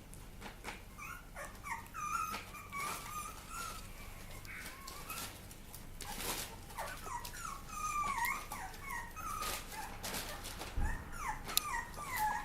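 Papillon puppies whimpering: many short, high, squeaky calls that slide up and down in pitch, coming one after another with brief rustling noises in between.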